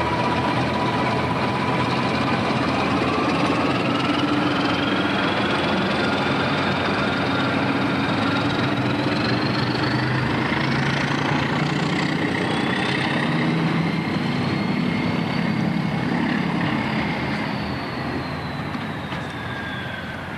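British Rail Class 14 diesel-hydraulic shunter D9531 under power as it pulls away along the line. Its engine note carries a whine that rises in pitch over the first half and falls again near the end, and the sound fades over the last few seconds as the locomotive draws away.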